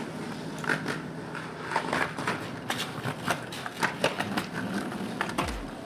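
Skateboard wheels rolling over pavement, with a low rumble and irregular sharp clicks and knocks.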